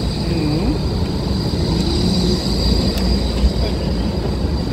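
A tram passing slowly at close range: a steady rumble from its running gear, with a thin high whine held above it.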